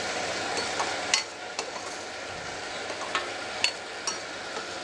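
Ground onion paste frying in hot oil in a stainless steel kadhai, sizzling steadily while a metal spatula stirs it, with several sharp clicks and scrapes of the spatula against the pan.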